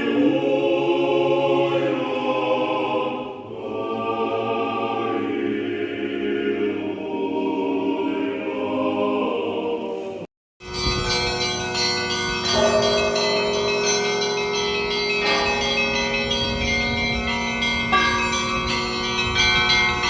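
A male choir singing Orthodox liturgical chant. About ten seconds in it cuts off, and church bells ring on with many overlapping, sustained tones.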